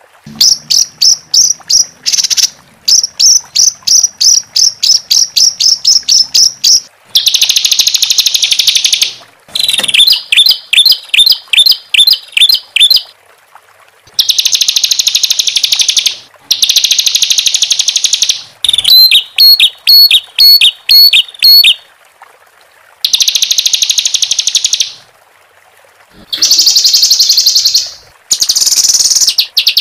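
Songbird singing harsh, rapid 'tembakan' (shot) phrases: fast trills of sharp repeated notes alternating with dense, buzzy bursts about one to two seconds long, separated by short pauses.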